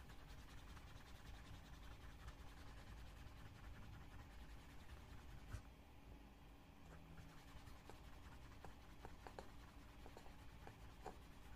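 Wooden edge slicker rubbed back and forth along the edge of a leather wallet, burnishing it: a faint, dry scraping with a few light ticks.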